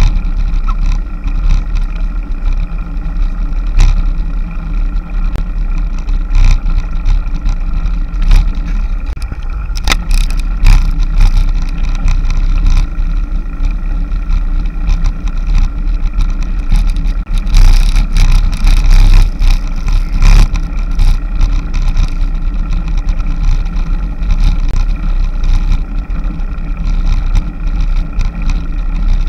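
Steady low rumble of wind buffeting and road vibration on a bicycle-mounted action camera during a climb, with scattered sharp clicks and knocks.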